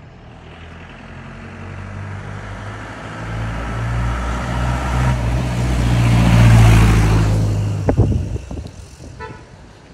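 A motor vehicle's engine running, growing louder as it draws close and passing loudest about six to seven seconds in, then fading. A few sharp knocks follow about eight seconds in.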